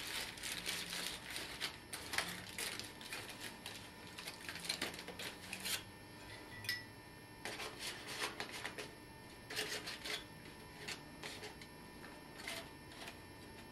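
Aluminum foil packet of grilled vegetables being opened and handled: irregular crinkling and small clicks, busy for the first half, then in scattered short clusters.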